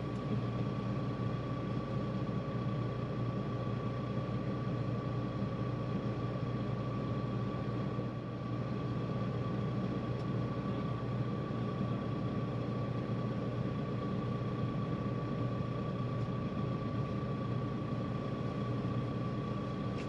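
A heavy vehicle's engine running steadily at a constant speed, with a steady high whine over the low hum.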